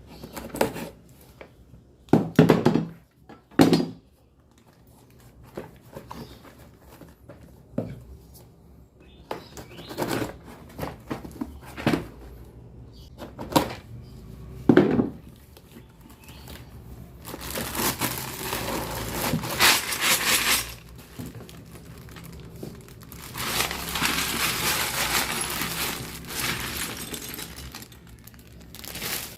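Plastic marble run pieces being handled and fitted together: scattered sharp clicks and knocks, then two longer stretches of steady rustling noise in the second half.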